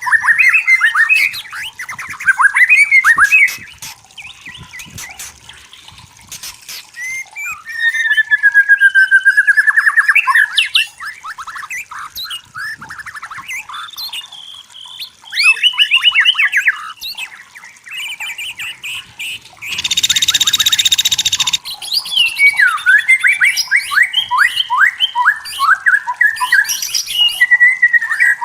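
White-rumped shama singing: a long run of varied, rapid whistled phrases with fast trills and pitch sweeps, broken by pauses. About two-thirds of the way through comes a loud, harsh rasping phrase.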